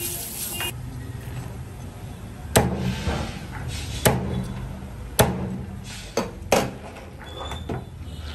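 Cleaver chopping king crab legs off on a plastic cutting board: about five sharp chops, irregularly spaced. A sink sprayer hisses briefly and stops under a second in.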